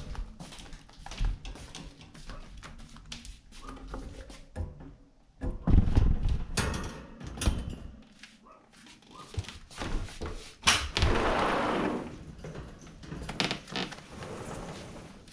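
Knocks, thumps and rustling of a birdcage being handled and carried, with a longer rushing or scraping noise about eleven seconds in.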